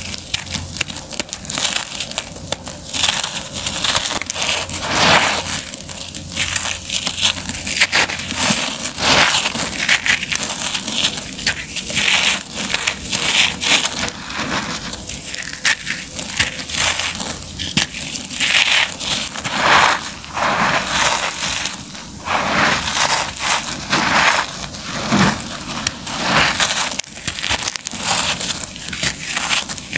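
Hands digging into and squeezing dry crushed concrete rubble and dust, which gives a continuous, irregular gritty crunching and crumbling as the pieces break and grind against each other.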